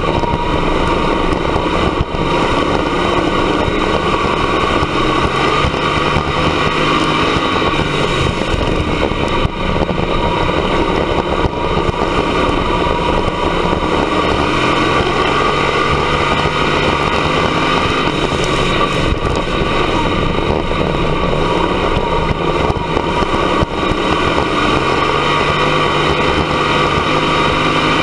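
Dirt-track race car's engine at racing speed, heard from inside the cockpit, loud and continuous. Its pitch climbs and drops back every few seconds as the car goes down the straights and through the turns of the oval.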